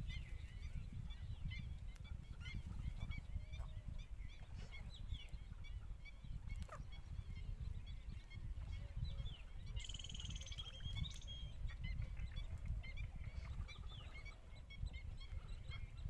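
Many birds calling in short high chirps, with a louder trilled call about ten seconds in, over a steady low rumble.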